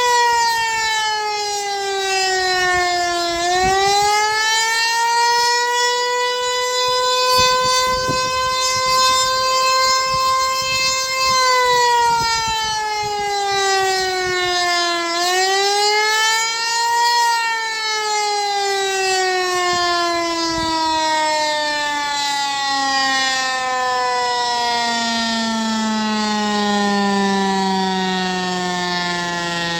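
Federal Signal Eclipse 8 electromechanical fire siren ending an attack signal. Its pitch dips and rises back twice, then from a little past halfway it winds down in one long, steady fall in pitch as the siren is shut off.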